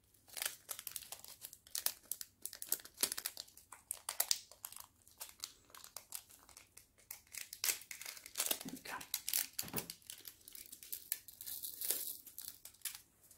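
Plastic bag crinkling and tearing as it is worked open by hand: a dense run of irregular crackles.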